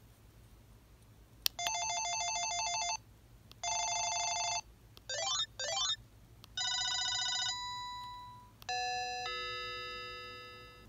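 Panasonic KX-TG8201 cordless phone handset playing short previews of its built-in ringer tones one after another, each started by a soft key click. First come two electronic warbling trills, then two quick rising chirps, then a ringing tone that fades out, and last a chime of held notes that dies away slowly.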